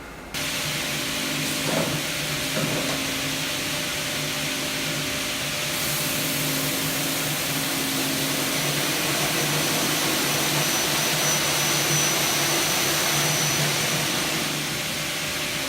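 Aluminium-profile cutting saw starting up suddenly and running steadily with a hum and a broad hiss; it grows louder about six seconds in and eases slightly near the end.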